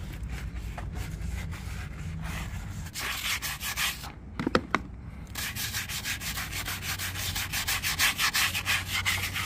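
Scrubbing the blue protective coating off the white bands of new whitewall tires in rapid back-and-forth rubbing strokes, with a short break about four seconds in. A low steady hum runs underneath.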